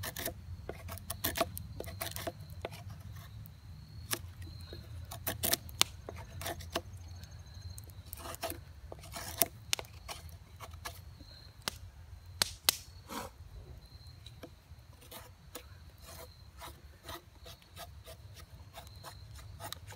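LT Wright Bushcrafter HC knife, with its 1075 carbon-steel blade, carving a stick of dry wood: the blade shaves and scrapes along the grain in irregular strokes, with sharp clicks as cuts bite and chips come off.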